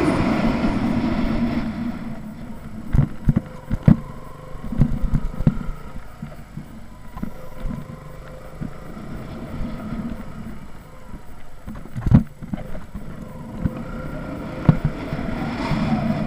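KTM 200 motorcycle's single-cylinder engine running. It is loud at first, fades about two seconds in, and grows louder again near the end. Several low thumps of wind on the microphone come in between.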